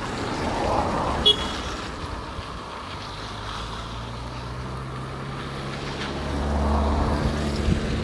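Wind rushing over the microphone outdoors, swelling in gusts near the start and again near the end. A sharp click comes a little over a second in, and a low steady hum joins about three seconds in.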